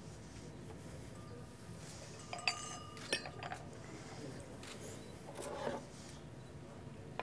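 Tableware clinking: cups or glasses knock together with a sharp ringing clink about two and a half seconds in and another about half a second later. A brief rattle follows a little over five seconds in, over a low murmur of room noise.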